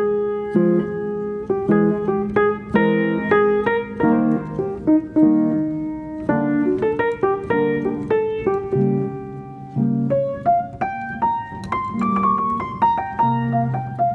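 Background piano music: a melody of short notes played over lower chords.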